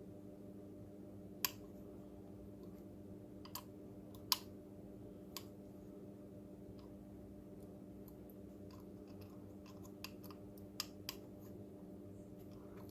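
Scattered light clicks and taps of a small screwdriver and plastic robot body parts being handled as screws are tightened, the loudest about a second and a half and four seconds in, with a cluster near the end. A faint steady hum runs underneath.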